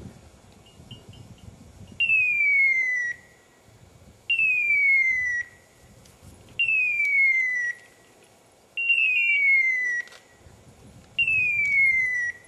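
Hunting dog's beeper collar in point mode: a falling electronic tone about a second long, repeating five times every couple of seconds, after a few short beeps about a second in. The repeating point tone is the signal that the dog has stopped and is holding a point on game.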